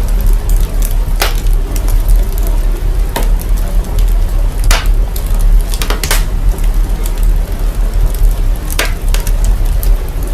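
Crackling fire with a steady sizzling hiss and a heavy, constant sub-bass rumble from processing, broken by sharp pops every second or two.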